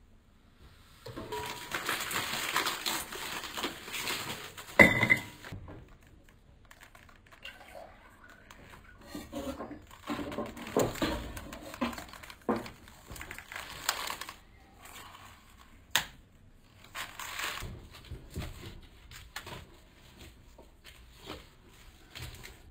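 Kitchen utensils knocking and scraping in a stainless steel mixing bowl as okonomiyaki batter and cabbage are worked, with a sharp metal clank about five seconds in and scattered knocks after.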